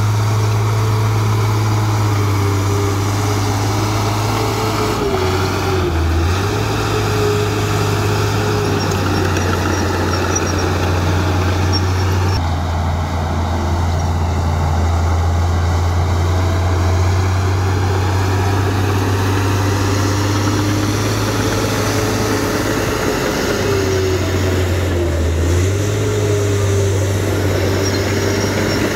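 Komatsu D53A crawler bulldozer's diesel engine running under load while it pushes earth with its blade, a steady low drone with its pitch wavering up and down.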